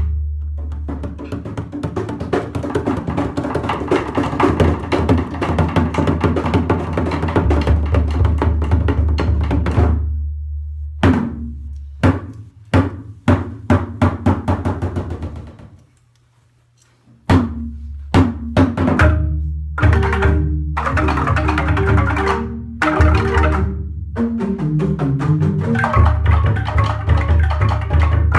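A Balinese gamelan jegog ensemble of bamboo tube instruments struck with mallets, with deep booming bass tubes under fast interlocking notes. Dense playing for about ten seconds breaks into separate accented strikes and then falls silent for about a second just past the middle. It comes back in with clearly pitched melodic notes and builds again.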